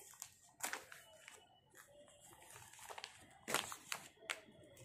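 Clear plastic packaging of folded T-shirts crinkling as the packs are handled, in several short rustles.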